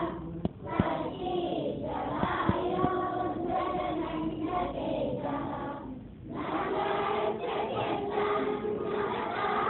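A group of schoolchildren singing a school prayer together. The singing breaks off briefly about six seconds in, then picks up again.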